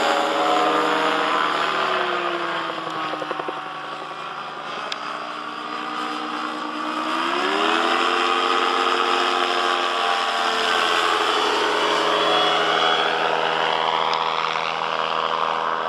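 Sportcopter Lightning gyrocopter's engine and propeller running in flight. The pitch drops about two seconds in, climbs steeply about seven seconds in, then holds steady.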